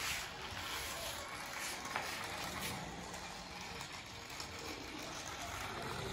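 Small battery-powered toy remote-control truck driving across a tiled floor, over a steady hiss of outdoor background noise, with a sharp click about two seconds in.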